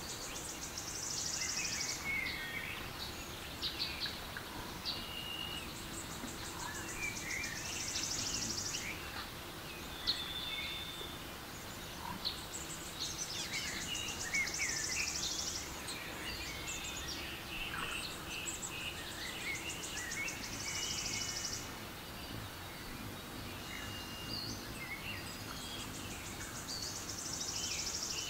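Recorded forest ambience with birdsong: scattered high chirps and calls over a soft steady background. A fast, high trill lasting about two seconds comes back roughly every six seconds, as in a looped nature-sound track.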